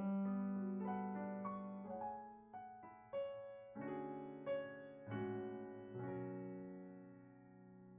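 Slow, soft piano music: single notes and chords struck every second or so and left to ring, fading away near the end.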